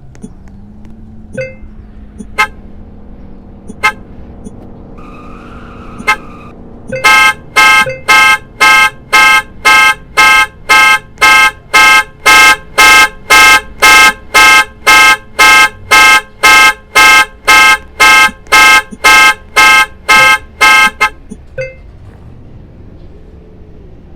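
Car panic alarm: the horn honks in a steady, even pattern of about two honks a second for roughly fourteen seconds, then stops. It is preceded by a few short clicks and a brief beep.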